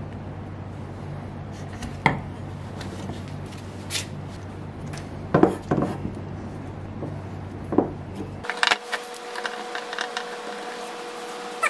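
Wooden knife handle scales and metal clamps being handled and set on a wooden workbench: scattered knocks and clicks, with a few louder clunks around the middle and denser small clicks near the end as the clamps are fitted. A steady low hum runs under the first two-thirds and stops abruptly.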